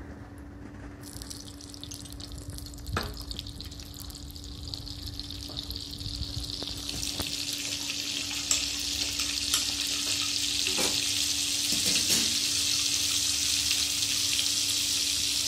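Butter and oil sizzling on a hot iron tawa as the butter melts, starting about a second in and growing steadily louder, with a few light clicks along the way.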